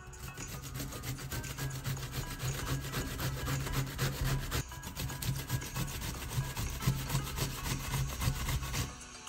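Courgette being grated on a stainless-steel box grater standing on a wooden cutting board: rapid, rasping back-and-forth strokes, with a brief break about halfway through, stopping shortly before the end.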